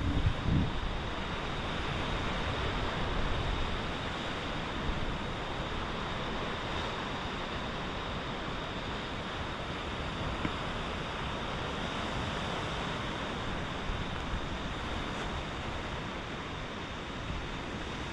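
Steady rush of ocean surf washing against the rocks below, mixed with wind, with a few low wind thumps on the microphone right at the start.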